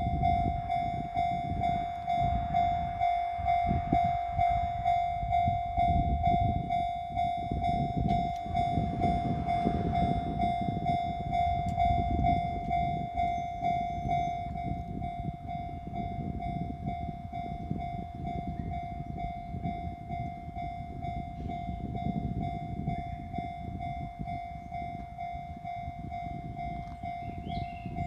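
Japanese level-crossing warning alarm ringing its repeating electronic ding, steady throughout, while a Kintetsu Minami Osaka Line train rumbles and clatters over the crossing. The train noise is loudest for about the first fifteen seconds, then eases while the alarm keeps ringing.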